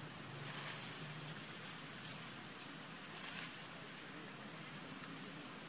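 Outdoor background: a steady hiss with a constant high-pitched whine throughout.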